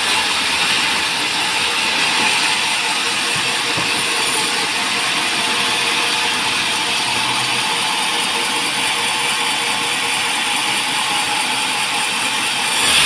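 Band sawmill running with a steady mechanical noise, getting a little louder right at the end.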